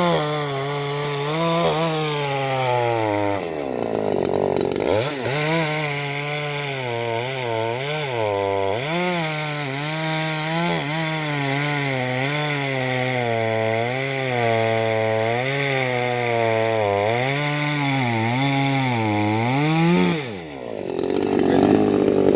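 Two-stroke chainsaw cutting through a log for firewood, its engine pitch pulled down and wavering as the chain bites into the wood. It revs up freely for a moment about four seconds in and again near the end.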